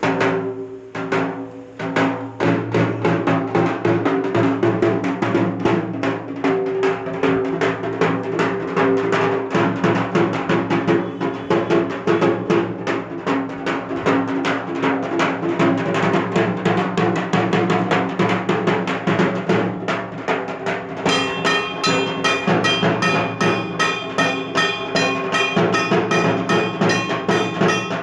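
Dhak drums played in a fast, continuous rolling rhythm of dense stick strokes. About three-quarters of the way through, a bright metallic ringing joins the drumming.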